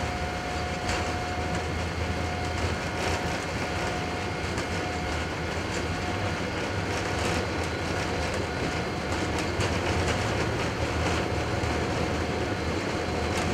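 Boeing 777-200LR takeoff roll heard from the flight deck: steady, deep rumble of the GE90 engines at takeoff thrust and the landing gear rolling down the runway, with irregular thumps from the wheels. The noise builds slightly toward the end as the aircraft gathers speed toward V1.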